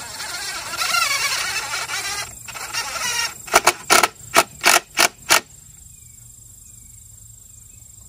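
Cordless impact driver sinking a screw into a wooden gate board, running for about two seconds, then about seven short trigger bursts to snug the screw home.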